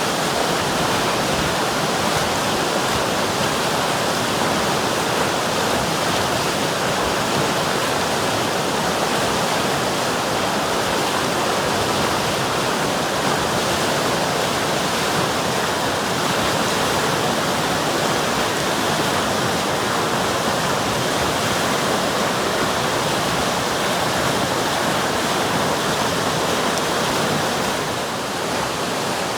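River water rushing steadily over rocks, a continuous even rush with no break.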